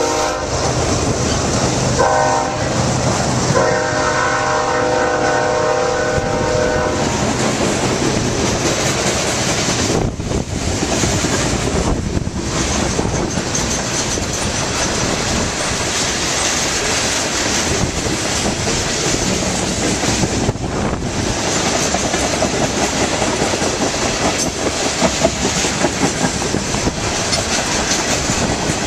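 Iowa Interstate freight train's flatcars and tank cars rolling past with a steady rumble and wheel clatter over the rail joints. The locomotive's multi-tone air horn sounds twice in the first seven seconds: a short blast about two seconds in, then a longer one from about four to seven seconds.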